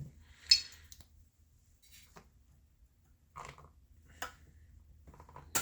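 Sharp clicks and light knocks of a hand tool against chainsaw metal parts as an anti-vibration spring is worked out, about five over several seconds, the loudest about half a second in.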